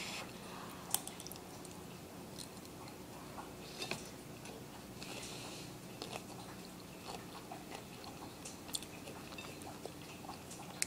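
Faint chewing of a hot mouthful of ground beef, rice and corn chips, with scattered soft mouth clicks.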